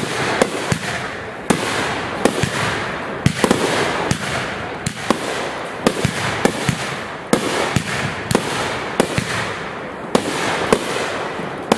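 Aerial fireworks shells bursting in rapid succession: sharp bangs about two a second at uneven spacing, with a steady rush of noise between them.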